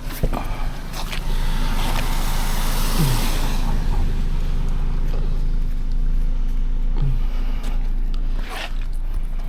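Air compressor running steadily to inflate a flat car tire, a low motor hum with a brief hiss of air, loudest from about a second in until near the end.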